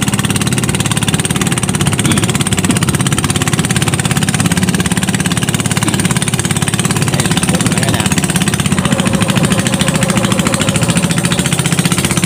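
Small petrol boat engine running steadily at cruising speed, with a fast, even putter, as the boat moves along.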